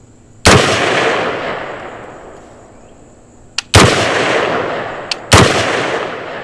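Three shots from a short-barrelled AR-15 pistol, slow aimed fire a second and a half to three seconds apart, each trailing off in a long fading echo.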